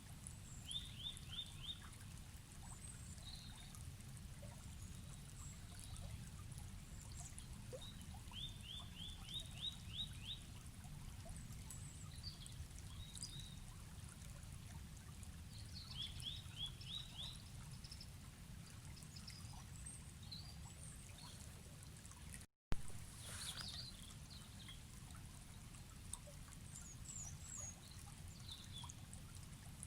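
A river or stream flows steadily while birds call over it. A short run of four to six quick, high chirps repeats every several seconds, among scattered other chirps. About two-thirds through, the sound cuts out for an instant and comes back with a sharp click.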